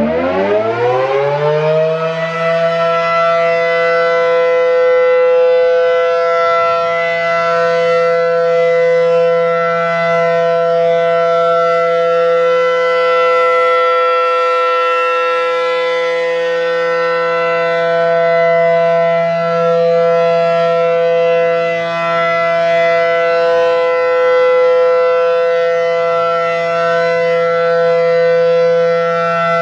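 ACA Allertor outdoor warning siren sounding its alert signal. It winds up, rising in pitch over the first two seconds, then holds a loud, steady, chord-like tone of several pitches at once, with its loudness swelling and easing slowly.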